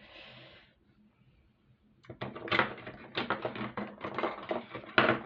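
Small beading supplies being handled: rustling and a quick run of light clicks and taps as a bead packet is picked through to check its size, starting about two seconds in, with one sharper click near the end.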